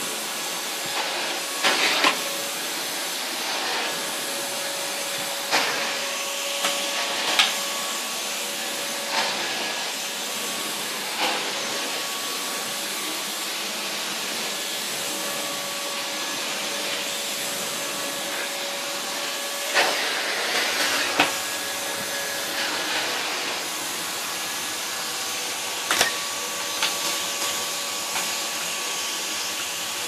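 Numatic Henry HVR200 vacuum cleaner with a single-fan motor running steadily: a rush of air with a high, whiny tone on top that fades in and out a little as the floor tool moves over carpet. Sharp knocks come now and then, a cluster near the start, a few more around two-thirds of the way through, and one near the end.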